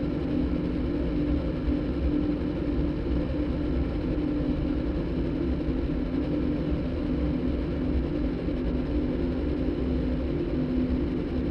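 Steady droning sound-design music made by cross-synthesizing a motorbike engine recording with a đàn bầu (Vietnamese monochord) concert recording: an engine-like rumble with a held, slightly wavering tone.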